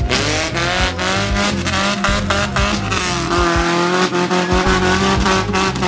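Engine of a tube-frame off-road buggy running hard under load as it climbs a muddy track, its pitch wavering with the throttle.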